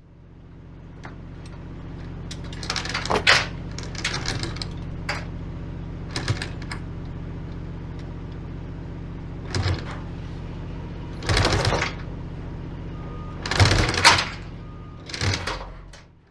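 Steel chain clanking and rattling against a metal bar and a wooden cable reel in about seven short bouts, over a steady low hum. The sound fades in at the start and fades out at the end.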